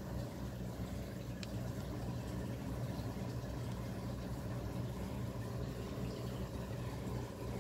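A steady low mechanical hum, even throughout.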